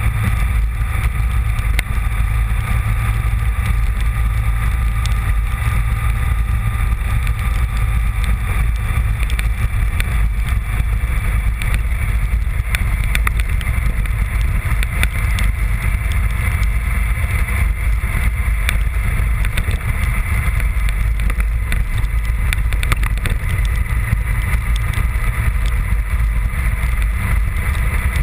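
Honda VFR750 motorcycle's V4 engine running at a steady cruising pace, with a heavy, steady low rumble under it.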